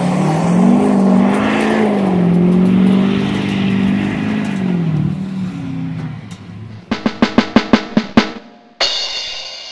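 A long, low, wavering pitched sound for about five seconds, then a quick snare drum roll about seven seconds in, ending in a ringing musical hit.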